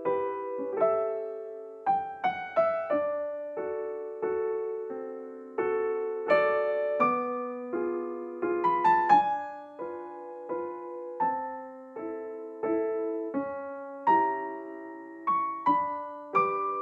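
Slow background piano music: a gentle melody of single struck notes and chords, each fading away before the next.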